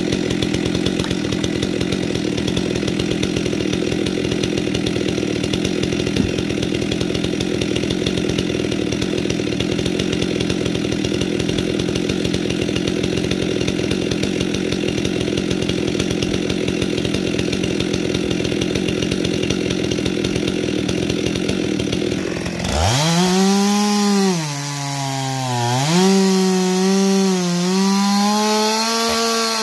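Two-stroke chainsaw idling steadily for about twenty seconds, then revved up hard and cutting into a log, its pitch dipping and recovering as the chain bites into the wood.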